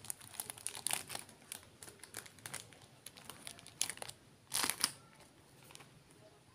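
Brown kraft paper wrapping crinkling and rustling as it is pulled off a plastic plant pot, in a quick run of short crackles. The loudest comes about four and a half seconds in, and the rustling stops about five seconds in.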